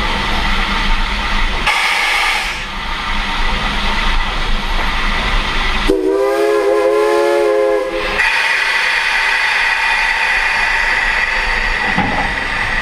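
A locomotive whistle sounds one chord blast of about two seconds, midway through, over the steady rumble and hiss of the moving train. A steady high hiss carries on after the blast.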